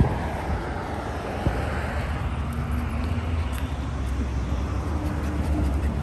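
Steady low outdoor rumble, like distant traffic or wind on the microphone, with a faint hum through the middle.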